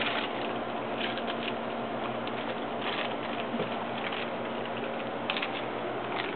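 Hard-shell tacos being bitten and chewed fast, giving irregular crisp crunches over a steady background hum.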